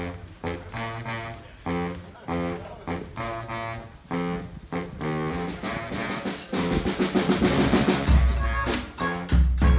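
Brass band with drums playing: short punched horn chords a little more than once a second, then a snare drum roll building over a couple of seconds, breaking into heavy bass drum hits under the horns near the end.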